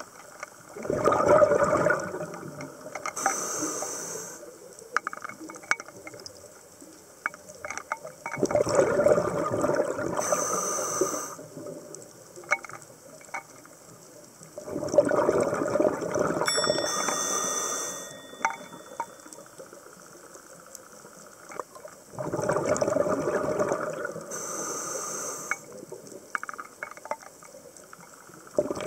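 A scuba diver breathing through a regulator underwater: four breath cycles about seven seconds apart, each a loud rush of air and exhaled bubbles, with small clicks and crackles between breaths.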